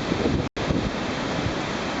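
Typhoon wind and driving rain as a steady, loud rush, with gusts buffeting the microphone in the first half second. The sound cuts out completely for an instant about half a second in, at an edit.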